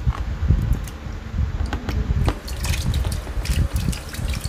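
Cut agar-agar jelly being tipped from a plastic scoop into a bucket of syrupy soda drink: wet plops and drips with a few sharp plastic knocks.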